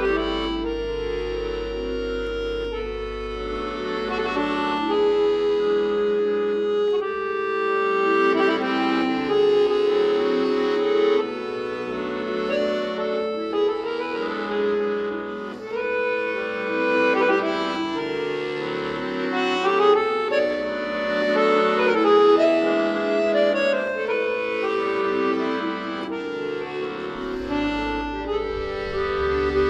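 Accordion duet playing a melody over sustained chords, the reeds holding long notes.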